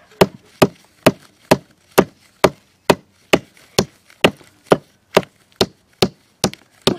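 Hammer driving a nail into a dry wooden board: a steady run of sharp strikes, about two a second.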